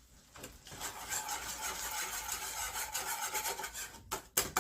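A cooking utensil stirring and scraping thickening semolina halwa around a pan in quick rubbing strokes. The strokes start about half a second in, and a few sharper knocks come near the end.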